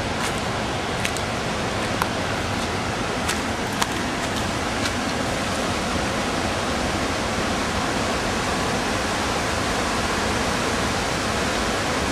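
Steady rushing of a flooded river, with a few faint clicks in the first four seconds.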